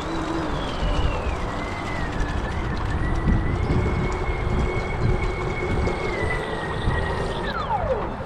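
Brushless motor of a VolantexRC Atomic SR85 RC catamaran whining at speed, with wind and water noise. The whine eases down in pitch over the first two seconds, holds steady, then falls away sharply near the end as the throttle comes off.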